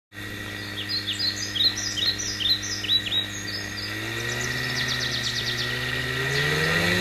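Rotax 582 two-stroke engine of a microlight trike running steadily, its pitch rising from about four seconds in as the revs climb. Birds chirp over it, a run of short downward-sliding calls in the first three seconds, then a quick trill.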